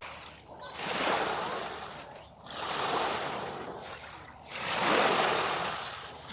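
Small sea waves washing onto a beach, the surf swelling and fading three times, about every two seconds.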